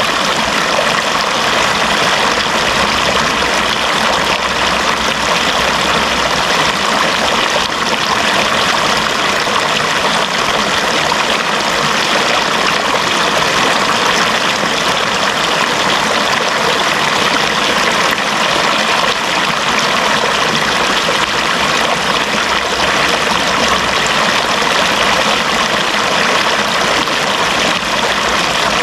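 Running water flowing steadily: an even, unbroken rushing hiss that does not change.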